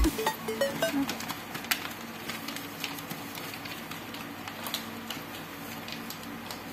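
Sheets of stiff A4 paper rustling and crinkling as they are folded and creased by hand, with scattered sharp crackles.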